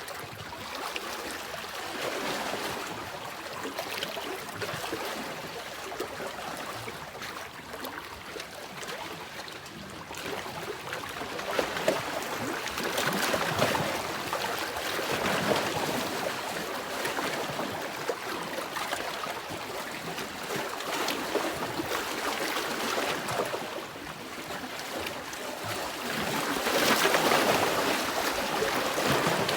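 Sea waves washing in, a steady rush of surf that swells louder in slow surges, most strongly in the middle and near the end.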